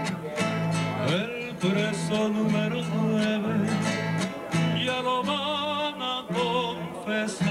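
Country-style background music led by plucked acoustic guitar, with a wavering, vibrato melody line over it about two-thirds of the way in.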